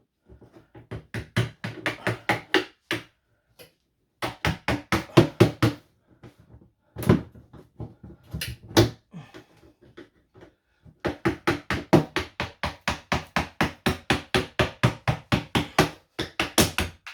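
Quick runs of sharp knocks, about five a second in four bursts with short pauses: a mallet tapping a screwdriver into the seam of a plastic battery case to split it open.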